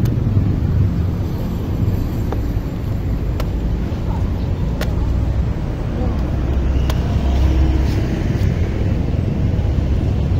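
Machete chopping into young green coconuts: a handful of sharp single strikes at uneven intervals, over a steady low rumble of road traffic.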